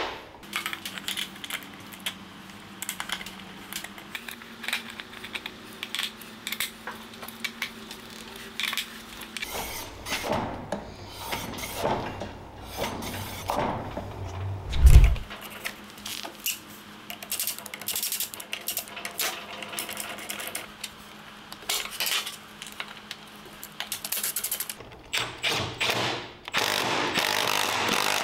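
Cordless impact wrench running in short bursts on the mini bike's axle and brake caliper bolts, among clicks and clanks of tools and metal parts. One loud, low thump comes about halfway through.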